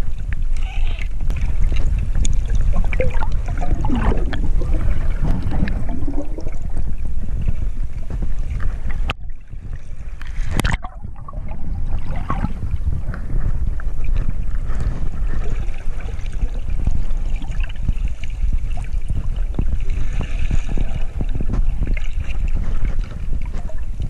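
Water noise picked up by an underwater action camera while diving: a steady low rumble of water moving over the housing, with scattered small clicks and some gurgling. About nine seconds in, the sound briefly turns duller and quieter before the rumble comes back.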